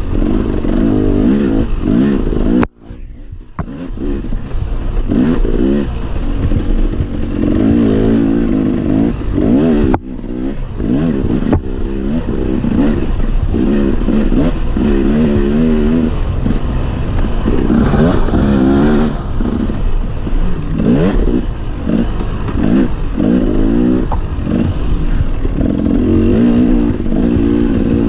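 Dirt bike engine revving hard and easing off again and again as the bike is ridden fast along a trail, the pitch climbing and falling with the throttle. The engine sound drops away suddenly for a moment about three seconds in, then builds back up.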